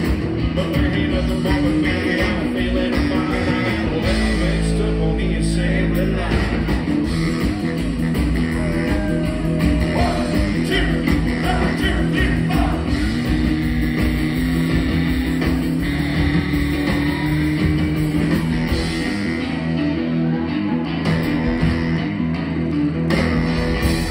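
Live rockabilly band playing, heard from among the audience: hollow-body electric guitar, saxophone, upright double bass and drum kit together.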